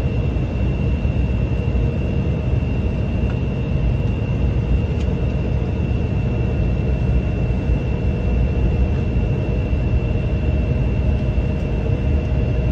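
Cabin noise inside an Embraer 175 regional jet rolling on the ground after landing: a steady low rumble from its GE CF34 turbofan engines, with a steady high whine over it.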